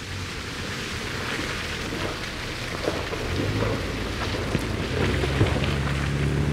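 Mini Cooper S Countryman ALL4 driving through mud on a dirt track: tyres churning and throwing up mud and grit that patters and crackles over a low rumble. The car's turbocharged four-cylinder engine comes in clearly about five seconds in, growing louder as the car passes close.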